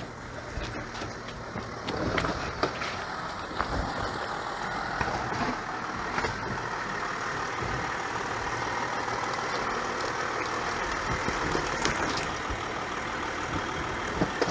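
Volkswagen Touareg SUV's engine running steadily while the vehicle crawls slowly off-road, with a few scattered clicks and knocks.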